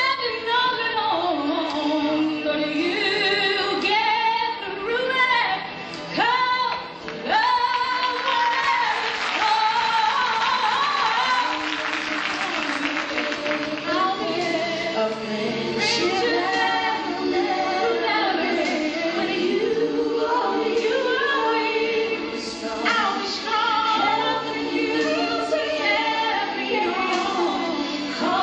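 Gospel-style music: a woman's voice singing lead with a choir of voices behind her. About nine seconds in, a wash of noise rises under the singing for several seconds.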